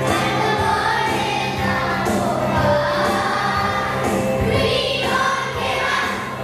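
Children's choir singing with musical accompaniment, over a steady low hum.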